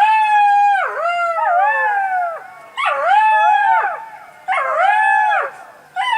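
Animal giving a series of high, dog-like howling calls: four calls, each about a second long, holding pitch and then falling at the end.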